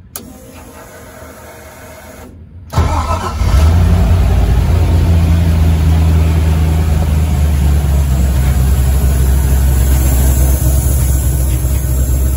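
A turbocharged LS V8 fires abruptly about three seconds in and settles into a steady idle.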